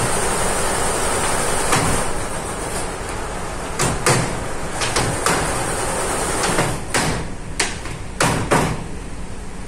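Steady running noise of embroidery-workshop machinery with a constant high hiss, broken by irregular sharp knocks and clacks from fabric and rods being handled on the metal machine bed, most of them in the second half.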